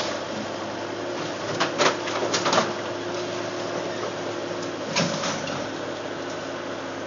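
Steady machine hum with a few sharp knocks: a pair about one and a half to two seconds in, a short cluster around two and a half seconds, and one more about five seconds in.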